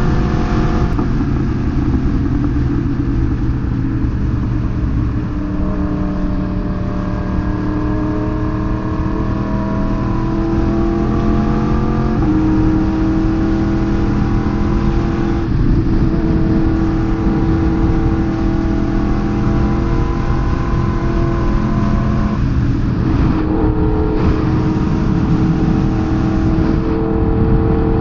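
Sport motorcycle engine running while riding, its note holding steady and then shifting in pitch with throttle changes, with a short let-off about twenty-three seconds in.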